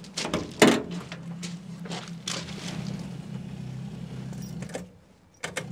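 A-series four-cylinder engine of a Morris Minor van running with a steady low hum, starved of fuel as its tank runs dry. There are a few short knocks, the loudest about half a second in, and the engine note drops away briefly near the end before picking up again.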